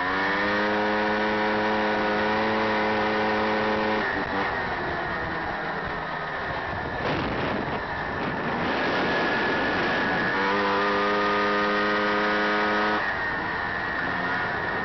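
Honda Odyssey FL350 buggy's single-cylinder four-stroke engine revving up and holding a steady high pitch under throttle, then easing off about four seconds in while a rushing wind and tyre noise takes over for several seconds. The engine pulls at steady high revs again and backs off shortly before the end.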